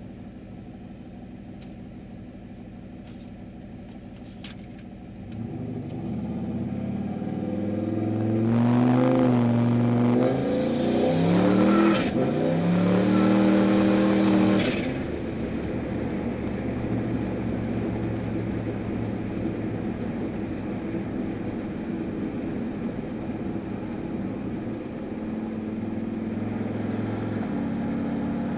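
Turbocharged Chevrolet Silverado pickup with a full exhaust, heard from inside the cab. It idles, then accelerates hard about five seconds in, the engine pitch rising through two gears with a shift between them and a high whistle rising over the second pull. It then drops back to a steady cruise.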